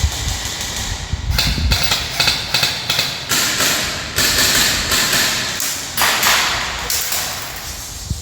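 Airsoft gun firing a string of shots: sharp clacks in quick, irregular succession, several a second, with bursts of hissing noise between them.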